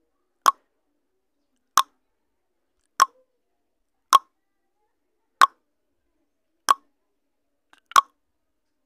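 Countdown timer sound effect: a short pop repeated about once every 1.2 seconds, seven times, each marking a step of the on-screen countdown.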